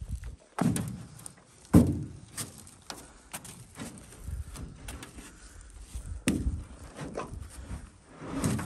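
Thumps and knocks on an aluminum jon boat's hull as someone steps into it and moves about. The loudest thump comes about two seconds in, with lighter knocks after.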